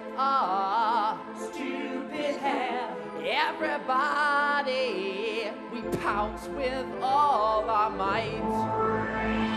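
A man sings a slow solo with wide vibrato over steady held accompanying notes; deeper bass notes join about six seconds in.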